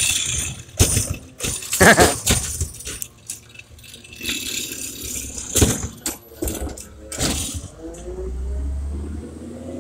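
Automated side-loader arm of a McNeillus ZR recycling truck handling a curbside bin: recyclables clatter and rattle into the hopper amid several sharp knocks of the plastic bin. Near the end the truck's engine rises in pitch and settles into a low drone.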